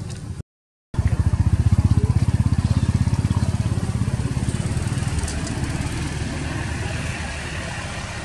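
A small engine running with a rapid, even beat. It starts abruptly after a brief cut-out about half a second in, is loudest soon after, and then slowly fades.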